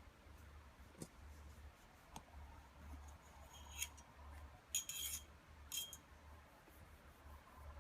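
A few light clicks and clinks of small hard parts being handled, the loudest cluster about five seconds in, over a low steady electrical hum.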